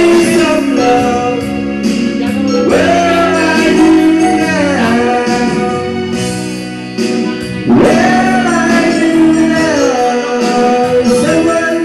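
A man sings through a handheld microphone over a backing music track, karaoke-style, holding long notes that slide in pitch.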